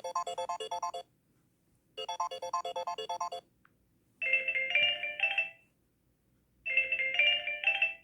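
Samsung Galaxy Note 9 ringtone playing from the phone's speaker: an electronic tune made of a quick run of repeated notes, heard twice with a pause between. Then a different short, higher chime phrase, also heard twice.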